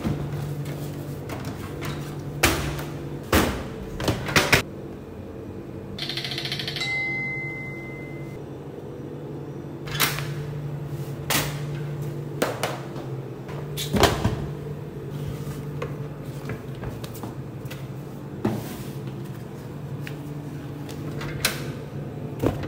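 Steady hum of refrigerated drink vending machines, broken by scattered knocks and clunks as a cardboard box is handled and the metal flap of the machine's pickup slot is pushed open. A brief high tone sounds about seven seconds in.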